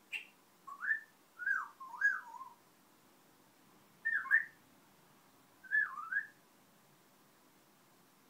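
Congo African grey parrot whistling her newly learnt whistle: short phrases of quick up-and-down glides, in three bursts with pauses between them.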